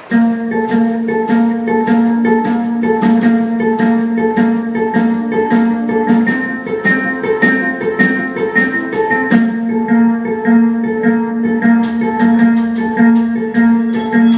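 Live music starts suddenly: a plucked string instrument playing a fast, repeating figure of short notes over a steady low note.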